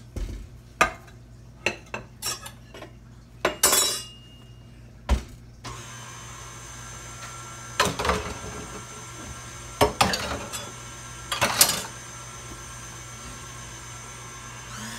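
Kitchen handling sounds: a run of sharp knocks and clicks, then three louder clatters later on, as utensils and the glass bowl of a stand mixer are handled. From about six seconds in, a faint steady hum lies underneath.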